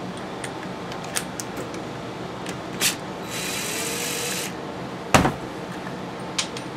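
Cordless drill-driver spinning for about a second as it backs a screw out of a chainsaw's housing, among scattered clicks of handled tools and parts, with one sharp knock about five seconds in.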